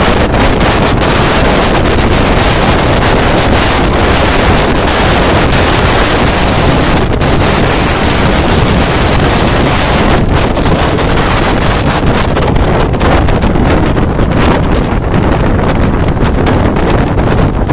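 Strong wind blasting across a phone microphone held out of a moving passenger train, with the train's running noise beneath it. The noise is loud and steady throughout.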